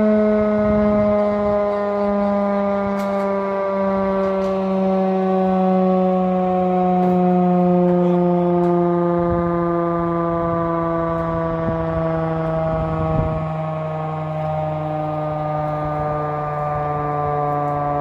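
Industrial air-raid siren sounding a loud, many-toned wail whose pitch falls slowly and steadily, as the siren winds down.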